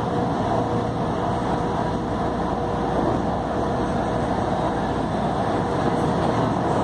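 Inside a moving electric commuter train: the steady rumble and rush of the car running along the track, with a faint steady hum.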